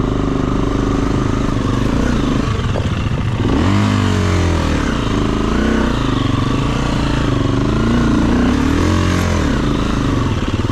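KTM enduro dirt bike engine running, with the throttle opened and closed several times from about a third of the way in, the revs rising and falling.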